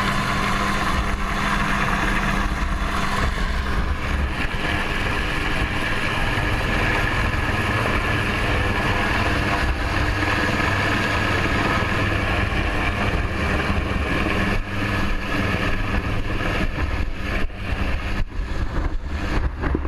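Helicopter hovering low overhead: steady rotor and turbine noise mixed with rotor wash buffeting the microphone. The buffeting becomes gusty and uneven in the last few seconds as the rope lifts the soldiers off the deck.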